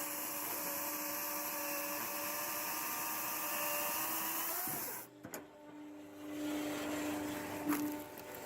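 Homemade firewood processor running with a steady motor whine and hiss. It drops away suddenly about five seconds in, then builds back up with a click near the end.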